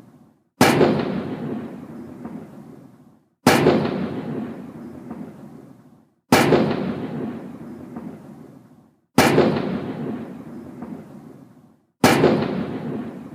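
Ceremonial salute guns of a 21-gun salute firing five booming shots, one about every three seconds. Each shot is followed by a long rolling echo that dies away before the next.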